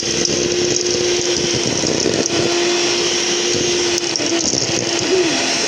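Electric kitchen mixer running steadily, a constant motor hum over a whirring noise; the hum's pitch dips briefly and recovers near the end.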